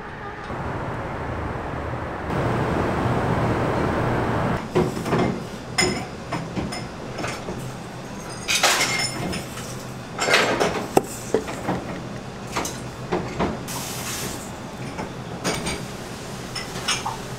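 A few seconds of steady background noise, then kitchen work on a stainless steel mixing bowl: a metal scoop clinks and scrapes against the bowl as flour and then sugar are poured in, with soft hisses of the pouring grains between the clinks.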